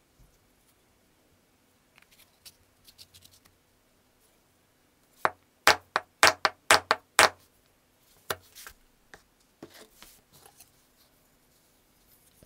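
A quick run of about seven sharp knocks, roughly three a second, with lighter taps and clicks before and after: a knife handle being tapped into place during assembly.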